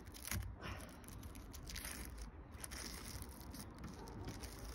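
Faint crinkling, rustling and small clicks of protective plastic film being peeled off the lid of a Maxxfan roof vent.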